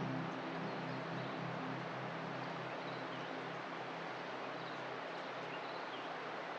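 Steady outdoor countryside ambience, an even hiss with a few faint, short bird chirps high up. The background music fades away in the first second.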